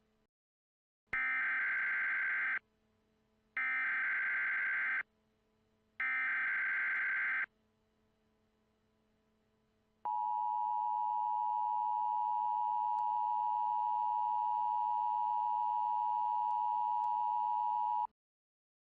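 Emergency Alert System tones. First come three short bursts of SAME header data, each about a second and a half long with about a second between them. These are the digital header that carries the alert, here a tornado warning. After a pause comes the steady two-tone EAS attention signal, held for about eight seconds before it cuts off sharply.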